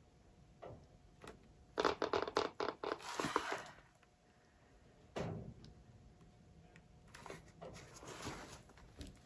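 Plastic sheeting crinkling and crackling in a rapid run of clicks as the plastic-covered turntable under the tile is handled and turned, with a soft knock about five seconds in and a second, shorter patch of crinkling near the end.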